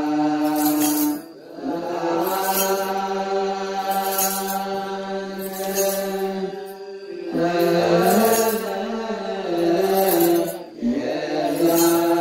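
Ethiopian Orthodox liturgical chant (mezmur): voices chanting long, held notes in phrases, stepping between a few pitches, with short breaths between phrases about a second in, near the middle and near the end. A faint high jingling beat recurs about every second and a half underneath.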